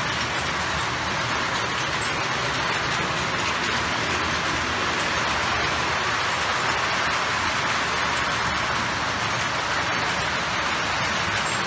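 O gauge model trains running on the track: a steady, even rolling noise of wheels and motors with a low rumble beneath.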